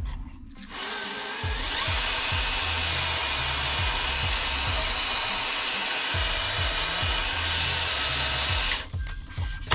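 The electric motor and gearbox of a RocHobby 1/12 Type 82e RC car run with the wheels spinning freely off the ground. The sound spins up about a second in, holds a steady high whine and hiss, and cuts off near the end.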